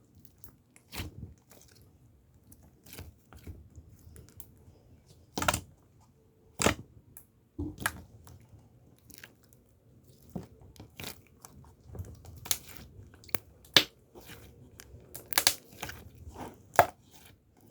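Close, irregular crisp clicks and crunches, roughly one every second or so and uneven in loudness, over a faint low steady hum.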